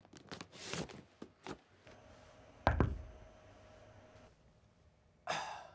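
Paper file folders being flipped through by hand, a quick run of rustles and taps, followed by one heavy thump about two and a half seconds in and a brief rustle near the end.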